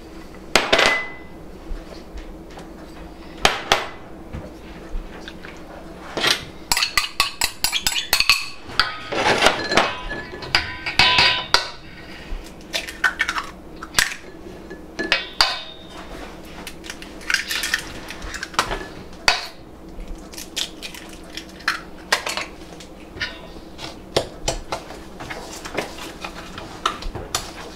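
Ceramic prep bowls clinking and scraping against a large stainless steel mixing bowl as ingredients are tipped in, eggs cracked on the rim and a utensil starting to stir. It comes as a long run of irregular sharp clinks and knocks, densest partway through.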